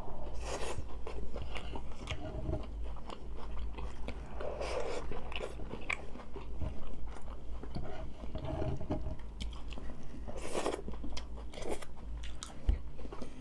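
Close-up eating of tacos: steady chewing and crunching, with a few louder crunchy bites spread through.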